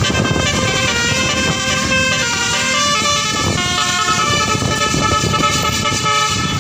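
Bus basuri (telolet) musical horn playing a tune of held notes that change pitch every second or so, over a low rumble.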